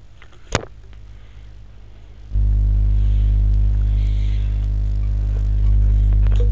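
A single mouse click, then about two seconds in a loud, steady electrical mains hum cuts in: a low buzz with a stack of evenly spaced overtones, typical of a ground loop or electrical interference on the recording.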